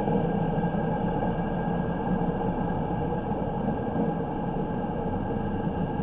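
Steady hum and hiss of city road noise, with no distinct passing event.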